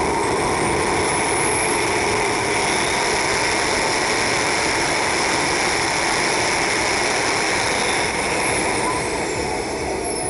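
Small model jet car's jet engine running at a standstill before launch: a loud, steady rushing noise with a faint high whine that rises in pitch early and falls near the end.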